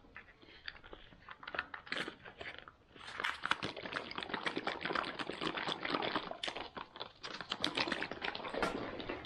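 Freeze-dried smoothie pouch crinkling and crackling as it is shaken hard to mix the powder with water, sparse at first and then thick and continuous from about three seconds in. The shaking is to break up powder that has not yet dissolved.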